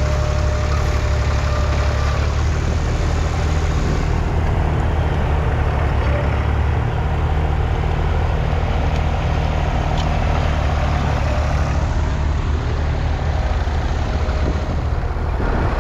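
1964 Massey Ferguson 35X tractor's 2.5-litre three-cylinder diesel engine running steadily with a deep, even rumble.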